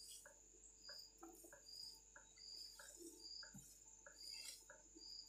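Near silence: room tone with faint, short, high chirps repeating a little more than once a second over a steady faint high whine.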